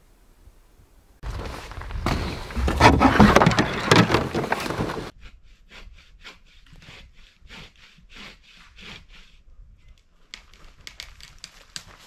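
Wood being sawn by hand: a loud, dense stretch of cutting starts about a second in, followed by lighter, even strokes about three a second. Near the end, footsteps on the forest floor.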